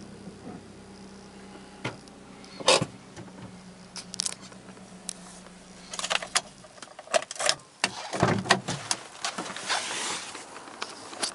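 Chevrolet Aveo 1.2 engine idling as a steady low hum heard from inside the cabin, stopping about eight seconds in. Clicks, key jangling and clunks come with it, then the driver's door is unlatched and opened near the end.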